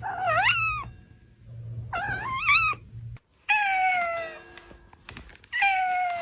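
Cat meowing: two short calls that waver and rise in pitch, then, after an abrupt cut about three seconds in, two longer drawn-out meows that slide down and hold steady.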